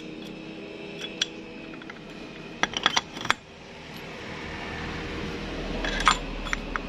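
Metal parts of a scooter's CVT drive pulley clinking as they are fitted by hand onto the crankshaft. There is a quick run of sharp metal clicks about three seconds in and another a little after six seconds, the loudest, over a low background rumble that builds in the second half.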